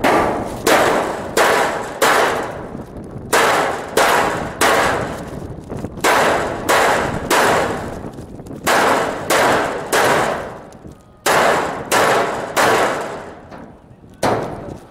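Gunfire: about twenty single shots, spaced roughly half a second to a second apart in short runs with brief pauses, each shot echoing and fading over most of a second.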